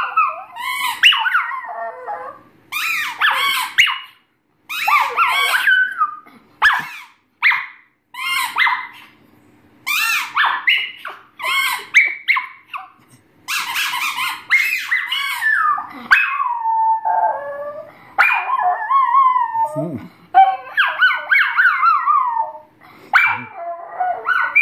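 Small shaggy-coated dog howling with its head raised: a long series of high, wavering howls and yips, each a second or two long with short breaks between, sliding up and down in pitch.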